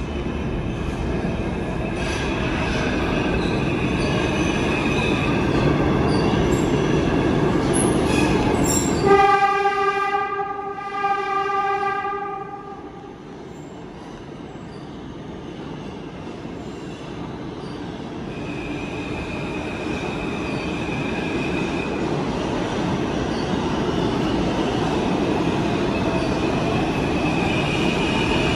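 New York City subway trains in a station: a train runs loudly, then a subway horn sounds about nine seconds in for about three seconds. After a quieter stretch another train builds up, with a steady high-pitched wheel squeal toward the end.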